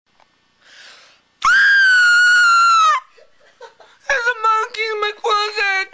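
A breath drawn in, then a loud, high-pitched shriek held for about a second and a half. About a second after the shriek a young man's voice starts wailing in short, choppy sobbing bursts.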